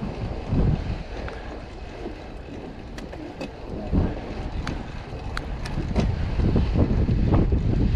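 Wind buffeting the microphone while riding a mountain bike through snow, with a low rumble that surges several times and scattered sharp clicks and rattles from the bike.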